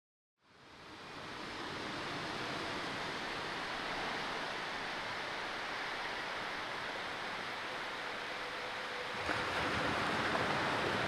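Ocean surf washing steadily onto the beach, fading in after a moment of silence at the start, with a slight rise and a small click about nine seconds in.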